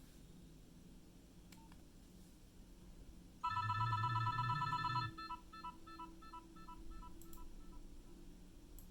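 Nokia 6030 mobile phone playing a ringtone through its small loudspeaker: a loud held electronic tone starts about three and a half seconds in, with a low buzz beneath it, then breaks into short beeps, about four a second, that fade away.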